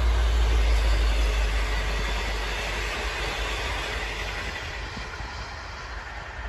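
A V/Line locomotive-hauled passenger train passes on the track and recedes: its carriages' wheels run over the rails with a deep rumble and rushing noise that fades steadily over the few seconds.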